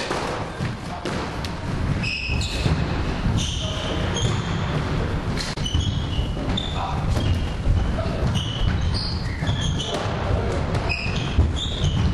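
Football being kicked and bouncing off the walls and wooden floor of an enclosed indoor court, with repeated thuds, and sneakers squeaking on the wooden floor as players run and turn.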